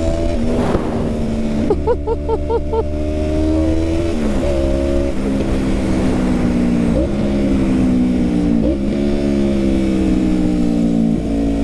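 Yamaha MT-03 parallel-twin engine running through a full free-flowing aftermarket exhaust while riding, its pitch dipping briefly several times as the revs change.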